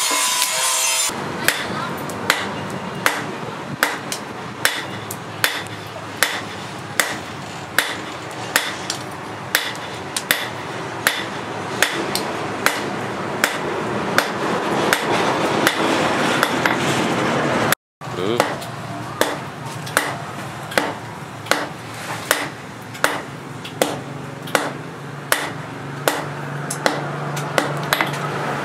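Blacksmith's hand hammer striking a red-hot steel knife blade on a steel post anvil, drawing out the blade by hand forging. The blows come in a steady rhythm of about one a second, with a brief dropout about two-thirds of the way through.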